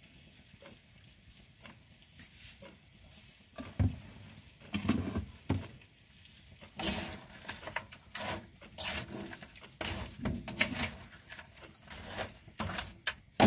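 Spatula stirring whole yabbies in a nonstick wok: irregular scrapes and clacks of the shells against the pan, starting a few seconds in after a quiet start.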